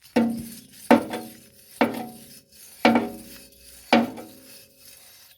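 Metal striking metal about once a second, six clanks in all, each ringing briefly at the same pitches, as the mower blade and its bolt are worked against the deck.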